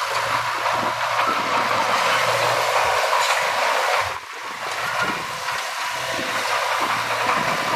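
Heavy earthmoving machinery running steadily, with a brief dip in level about four seconds in.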